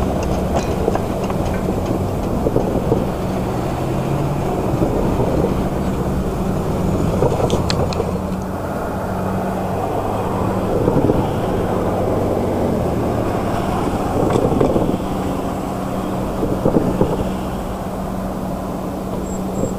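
An engine idling steadily, with a low hum, while cars pass by on the road now and then.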